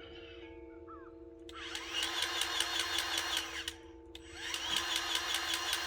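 Ryobi cordless grease gun running in two bursts of about two seconds each, its small motor whining with a rapid, even clicking of the pump. The zerk fitting is not taking the grease.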